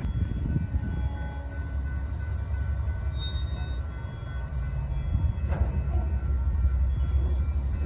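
A train passing close by: a steady, heavy rumble of wheels on rail, with a few faint high tones ringing over it.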